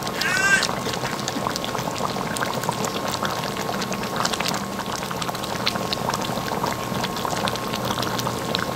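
Pork puchero broth simmering in a pan, bubbling steadily, while a ladle scoops up broth and pours it back over the cabbage. A brief high squeak sounds just after the start.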